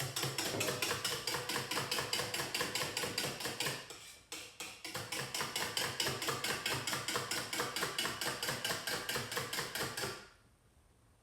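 Fast, even clicking, about five strokes a second, as a mixing bowl is beaten by hand, the utensil knocking against the bowl. It pauses briefly about four seconds in, then goes on until near the end.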